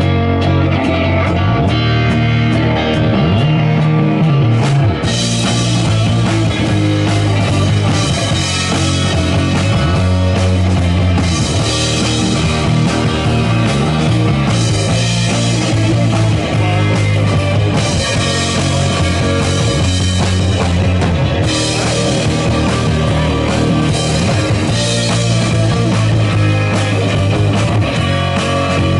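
Live psychedelic rock band playing loudly: electric guitar over drum kit, with no singing. About five seconds in, a bright cymbal hiss comes in and then drops in and out every few seconds.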